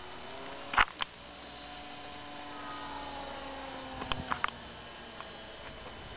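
Skyartec Pitts S-2A RC model plane's electric motor and propeller whining in flight, a thin hum whose pitch slowly shifts as the plane moves. Sharp clicks, the loudest sounds, come twice about a second in and four times in quick succession around four seconds in.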